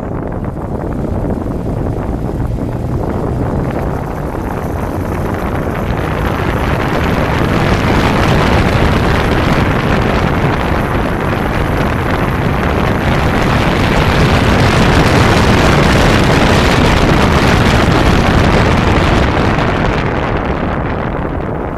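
1992 Kawasaki Zephyr 550's air-cooled inline-four running while under way, mixed with wind rushing over the microphone. The rush grows louder from about six seconds in and eases off near the end.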